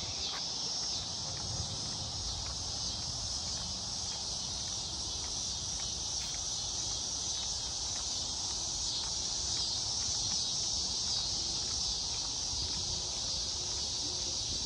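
Steady evening chorus of insects such as crickets, a continuous high-pitched shrill drone with no breaks, over a low rumble.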